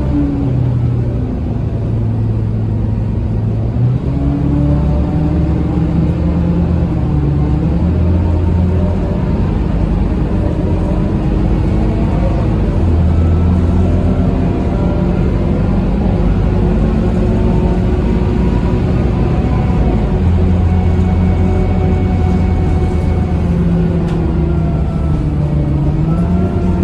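Scania K230UB bus's DC9 diesel engine heard from inside the passenger cabin, running under way with its ZF Ecomat automatic gearbox. The engine note climbs and drops back several times as the gears change.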